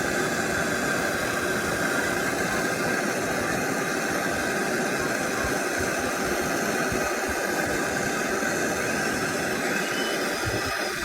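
Handheld gas torch burning with a steady hiss, its flame heating a seized oxygen sensor on the exhaust to loosen it.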